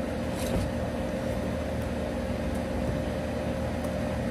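Steady hum of an air-conditioning unit, with a constant tone over a low drone. A brief rustle comes about half a second in.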